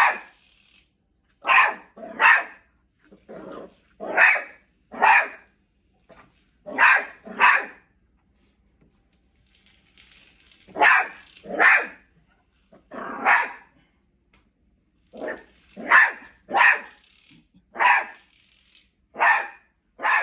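Beagle puppy barking at a new cat toy: about sixteen short barks, often in quick pairs, with a pause of about three seconds near the middle.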